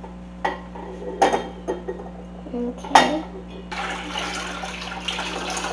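A few sharp clinks and knocks at a stainless steel saucepan and its lid, then, from about three and a half seconds in, a steady pour of water from a plastic pitcher filling the pot.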